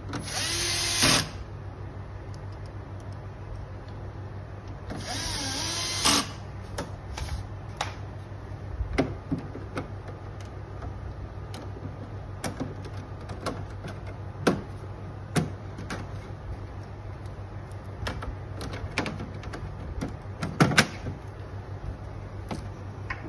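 Cordless drill driving screws into a dehumidifier's plastic back panel: two short runs of the motor whine, each about a second long and ending in a sharp stop as the screw seats. After that come scattered sharp clicks and knocks of plastic parts being handled as the air filter and back grille are fitted, over a steady low hum.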